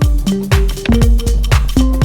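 Electronic dance music with a steady kick-drum beat, about two hits a second, under held synth notes.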